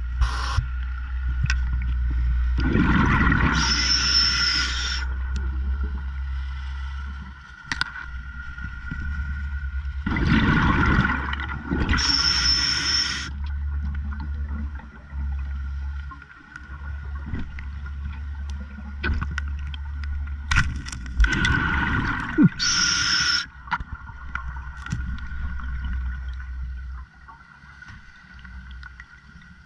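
A scuba diver breathing through a regulator underwater: three breaths about ten seconds apart, each a rush of exhaled bubbles and a hiss from the regulator, over a steady low hum.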